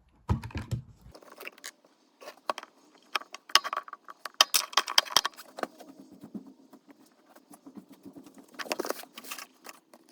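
Small tool scraping and clicking against the metal wheel pickups of a Hornby Triang dock shunter model locomotive as they are cleaned in place. Irregular light clicks and scrapes, busiest in the middle and again near the end.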